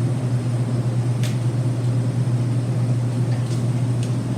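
A steady low machine hum, constant throughout, with a few faint light clicks.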